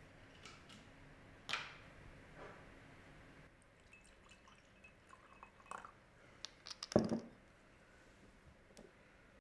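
A glass bottle opened with a sharp click, then liquid poured from it into a glass tumbler with small splashes and clinks. A knock about seven seconds in, the loudest sound, as the bottle is set down on the stone counter.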